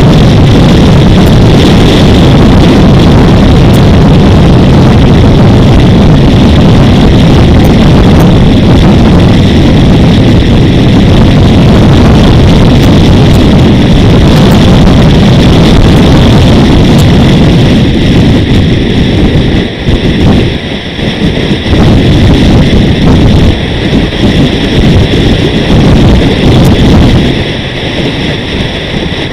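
Loud wind and road rush buffeting an action camera's microphone on a moving vehicle, with engine noise underneath. In the last third it eases and surges back unevenly.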